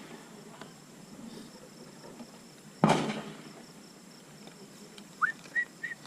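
A single gunshot about three seconds in, a sharp crack that dies away over about a second. A few short, high, rising chirps near the end.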